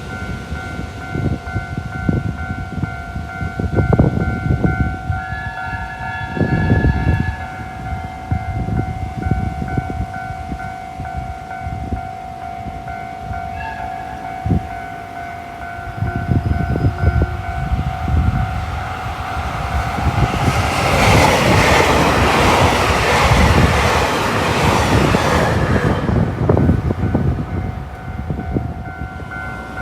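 Level-crossing warning bell ringing steadily while a train sounds its horn for about two seconds and then gives a short toot. A train then passes close by for about six seconds, its rushing and wheel noise being the loudest part.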